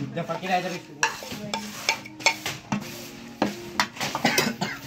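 Metal spoon clinking and scraping against a stainless-steel bowl as spices are spooned onto grapefruit segments, in a run of short, irregular clicks.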